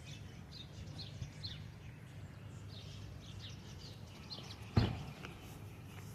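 Small birds chirping, short high chirps repeating every half second or so over a steady low background rumble. A single sharp thump or knock sounds about three-quarters of the way through.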